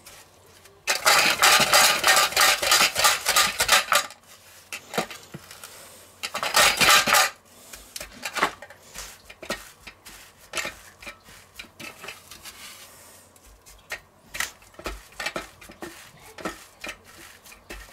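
Metal kitchen tongs scraping and clattering against a stainless steel pan full of panko breadcrumbs: a long stretch of rapid scraping about a second in, a shorter one a few seconds later, then scattered lighter clicks and rustles as the crumbs are pressed on by hand.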